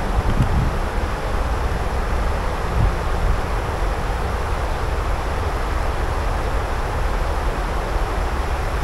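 Wind blowing on the microphone: a steady low rumble with a hiss above it.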